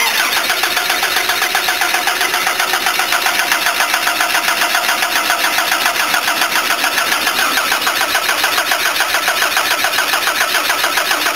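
Toyota HiAce van's carburetted petrol engine cranking over steadily on the starter without catching, an even rhythmic pulsing throughout. The engine is flooded with petrol from an overflowing carburettor float bowl.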